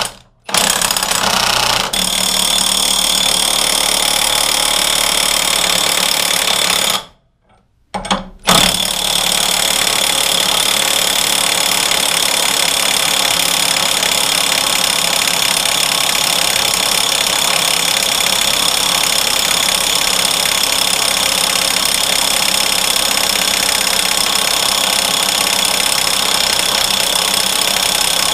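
Milwaukee M18 2763 half-inch cordless impact wrench hammering steadily on a 1-inch bolt torqued to about 1,000 ft-lbs, failing to break it loose. It stops briefly right at the start and again for a second or so about seven seconds in, then hammers on without a break.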